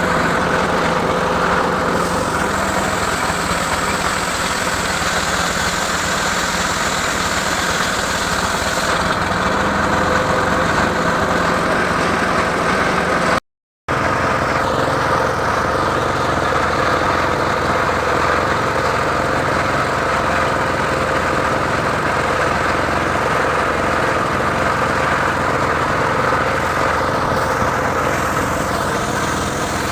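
Engine of a home-built portable circular sawmill running steadily, with a brief dropout about halfway through.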